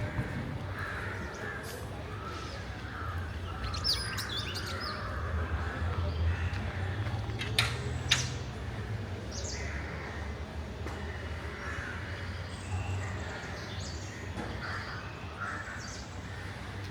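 Crows cawing repeatedly and small birds chirping over a low, steady rumble of distant traffic, with two sharp clicks about halfway through.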